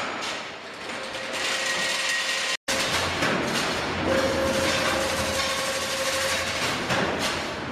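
Double-spiral automatic chain link fence machine running, its mechanism clattering steadily as it weaves wire mesh, with a steady hum and whine. The sound breaks off for a moment about a third of the way in, then carries on louder.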